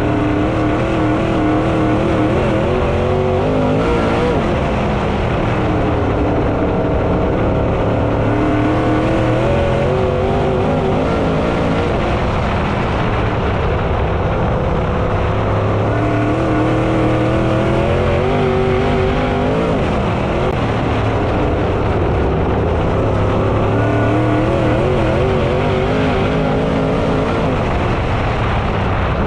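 Dirt late model race car engine running at racing speed, its revs rising and falling over and over as it goes through the straights and corners.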